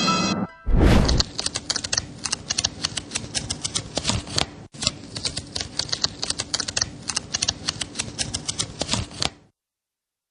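A short, loud whoosh about a second in, then rapid, uneven typing clicks like a keyboard or typewriter for about eight seconds, cutting off suddenly near the end.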